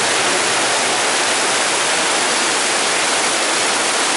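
Heavy tropical downpour: a dense, steady rush of rain pouring down, with no let-up.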